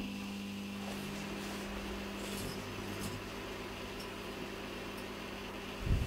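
Microwave oven running with a halogen bulb inside: a steady electrical hum with fan noise behind it. Near the end comes a short low thump, just as orange sparks appear on the bulb.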